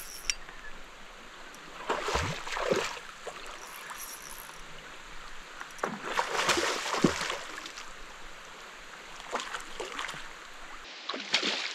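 A hooked fish thrashing at the water's surface, splashing in bursts about two, six and eleven seconds in, over a steady hiss of rain falling on the river.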